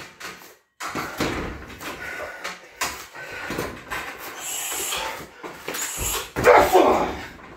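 A shin kick lands on a 60 kg heavy bag with a loud smack about six and a half seconds in. Before it come fainter, irregular knocks and rustles.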